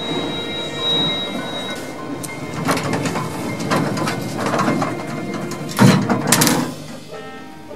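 Old Marryat & Scott passenger lift in use: a steady high hum in the first two seconds, then a run of clicks and clattering, with the loudest door-sliding clatter about six seconds in.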